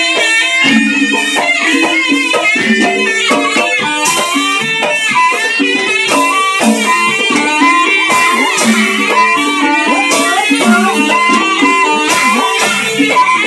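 Loud traditional Javanese ebeg accompaniment music: a busy melody of stepped, held notes, with bright metallic strokes now and then.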